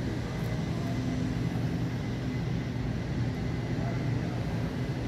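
Steady low hum of a large indoor hall's air conditioning, even throughout with a faint high whine above it.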